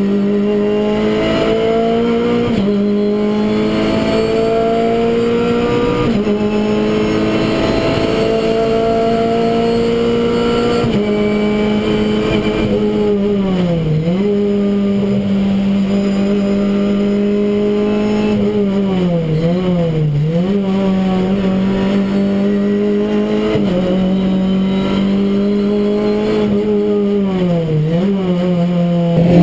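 Renault Clio Cup race car's four-cylinder engine running hard at high revs, heard from inside the cockpit. The pitch climbs slowly in long pulls with sharp drops at gear changes about 2.5, 6 and 11 seconds in, then holds nearly level with short dips and recoveries around the middle and near the end.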